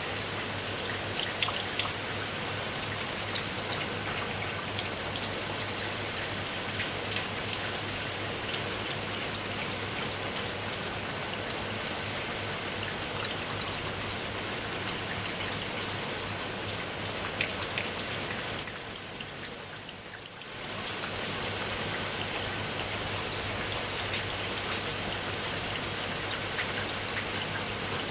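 Heavy rain falling steadily, with many sharp individual drop hits over the even hiss. It fades briefly about two-thirds of the way through and then comes back.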